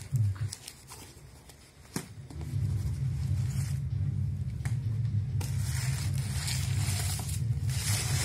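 Cardboard box flaps and shredded-paper packing handled and rustled by hands, with a single tap about two seconds in and louder crinkling paper near the end. A low steady hum runs underneath from a couple of seconds in.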